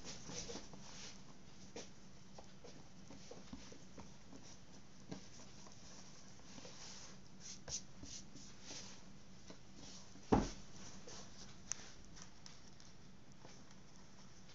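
Hands pressing and stretching pizza dough out in a round pan: faint soft rubbing and patting, with a single knock a little past the middle, over a low steady hum.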